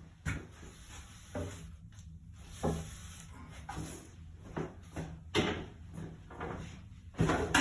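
Irregular knocks and scrapes of wood being handled, five sharper knocks spread over the stretch, over a low steady hum.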